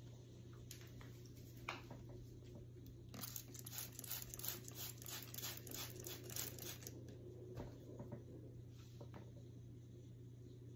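Crinkly material being handled: a quick run of rustling and crinkling that lasts about four seconds in the middle, over a faint steady low hum.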